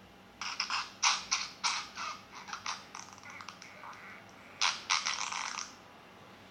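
Fart sound effects played back from a soundboard app. First a rapid string of short sputtering blasts tails off into a quieter rattle, then a second loud sputtering burst comes about four and a half seconds in.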